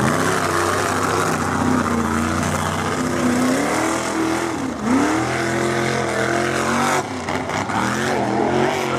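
Mud bog truck's big engine revving hard as it plows through a mud pit, its pitch rising and falling with the throttle. A little before five seconds in the revs drop sharply and climb straight back up.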